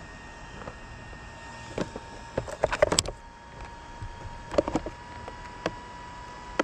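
An RC truck being handled on gravel: bursts of clicks and rattles about two seconds in and again near five seconds, over a faint steady high-pitched tone.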